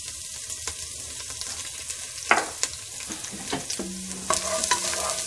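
Garlic sizzling in hot oil in a frying pan, being stirred, with small clicks and scrapes from the utensil on the pan. There is a sharp knock a little over two seconds in.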